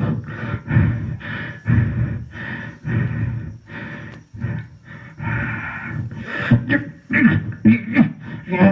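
Beatboxing: a performer's mouth-made drum hits and vocal sound effects in a fairly steady rhythm, with some squealing, gliding vocal noises near the end.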